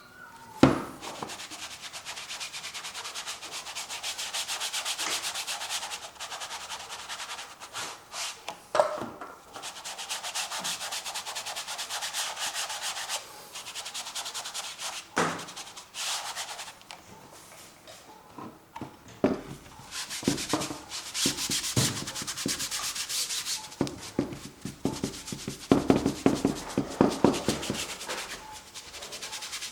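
Paintbrush scrubbing acrylic paint across canvas in long scratchy strokes, broken by a few sharp knocks and a run of quick taps near the end.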